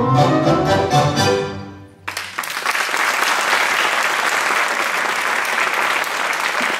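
Tango music on strings plays its last phrase and fades out about two seconds in. An audience then applauds steadily until it stops abruptly at the end.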